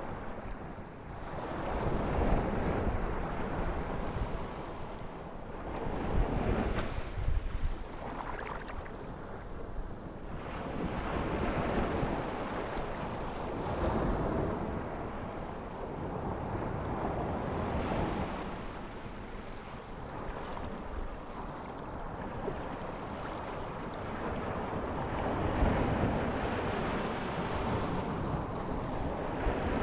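Ocean surf: waves breaking and washing in, the rush swelling and fading every few seconds.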